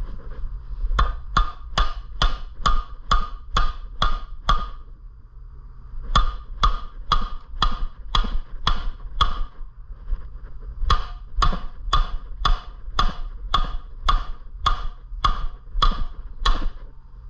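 Hammer blows ringing on metal, struck hard against the Predator 212cc engine's flywheel to knock it loose from the crankshaft without a puller. Three runs of steady strikes, about two a second, with short pauses between.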